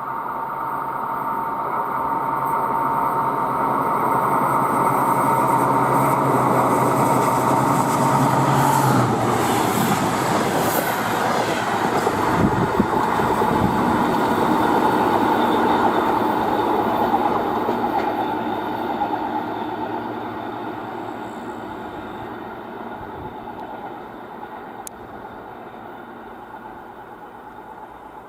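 DR1A diesel multiple unit, two sets coupled, passing at speed: the engine hum and wheel-on-rail noise build as it approaches. The engine tone drops in pitch as the power car goes by about nine seconds in. Rail noise continues as the long train runs past, then fades away.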